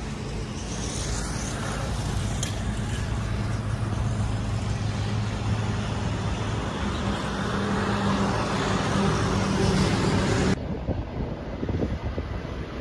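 Street traffic: a motor vehicle's engine running with a steady low hum that grows louder, then cuts off abruptly about ten seconds in. After the cut there is wind buffeting the microphone.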